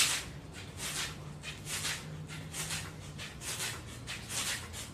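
Heavy rhythmic breathing of a woman doing mountain climbers, a hissy exhale a little under once a second, over a steady low hum.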